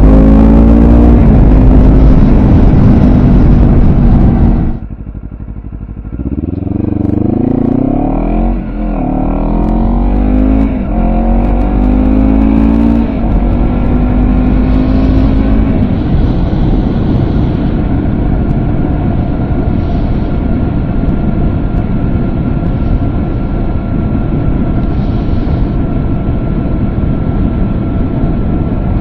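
2023 Honda CBR250RR's parallel-twin engine revving high, then dropping away suddenly about five seconds in. It then pulls up again through several gears, each a rising note that falls back at the shift, and settles into a steady drone for the second half.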